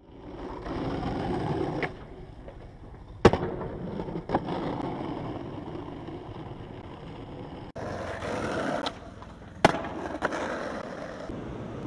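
Skateboard wheels rolling on asphalt with a steady grinding, broken by a few sharp clacks of the board hitting the ground. The two loudest come about three seconds in and again about ten seconds in.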